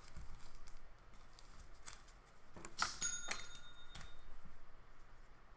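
Light clicks and rustles of trading cards and plastic sleeves being handled on a table, with a short chime ringing for about a second about three seconds in.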